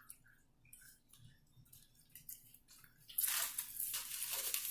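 Soft eating sounds, small mouth clicks and squelches, then a loud rushing hiss starting about three seconds in and lasting to the end.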